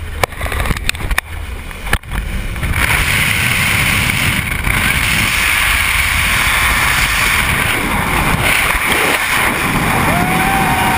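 Freefall wind rushing over the camera's microphone during a tandem skydive: a few sharp knocks and uneven gusts as the pair tumble clear of the plane, then from about three seconds in a steady, loud rush of air.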